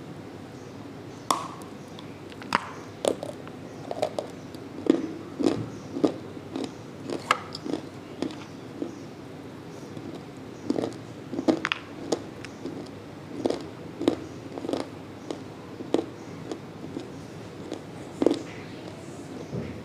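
Lumps of multani mitti (Fuller's earth clay) being bitten and chewed, giving a string of sharp, irregular crunches about one a second.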